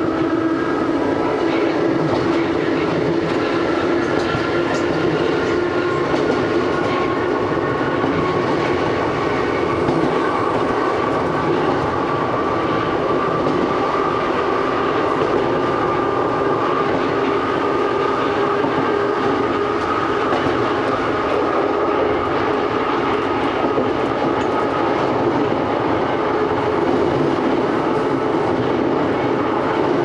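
Takamatsu-Kotohira Electric Railroad's retro electric train (1000-type and 5000-type railcars) running along the line, heard from the cab. A steady whine rises slowly in pitch over continuous wheel-on-rail noise.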